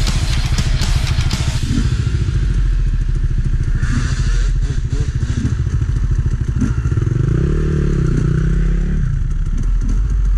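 Enduro dirt bike engines running with a rapid popping beat, and one revved up and back down between about seven and nine seconds in.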